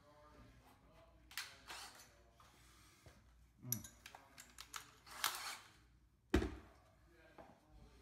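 Quiet handling noises: scattered small clicks and rustles, a short burst of hiss about five seconds in and a sharp knock a little after six seconds, with faint voices in the background at times.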